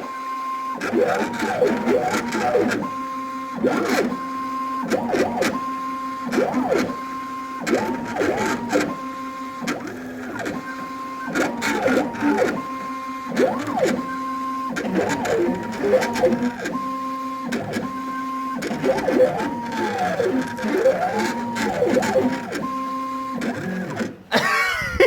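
Stepper motors of a CNC pen plotter whining as the axes move the pen, the pitch sweeping up and down with each stroke, broken by short pauses and clicks. The motors stop about a second before the end as the drawing finishes.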